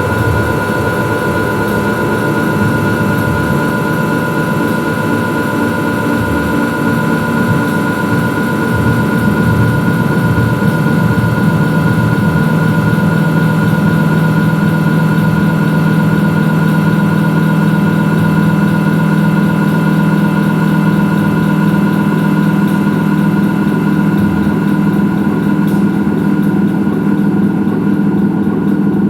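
Loud, dense electronic noise-music drone: steady high held tones over a thick low rumble that swells and settles about halfway through.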